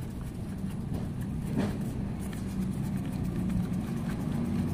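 A motor vehicle's engine running, a steady low hum that grows louder near the end, with a few faint plastic clicks from a screw being turned into a toy train.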